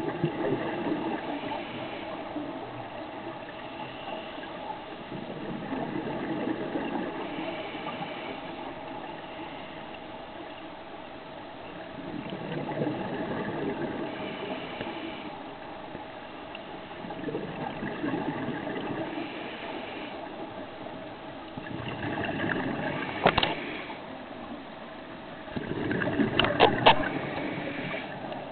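Scuba breathing heard underwater: a rush of regulator exhaust bubbles about every five seconds, each lasting two to three seconds, over a steady hum. A few sharp clicks near the end.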